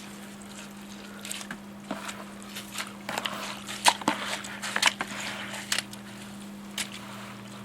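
Irregular short splashes and squishes as a wet humidifier filter is handled in bleach water, about ten of them scattered through, over a steady low hum.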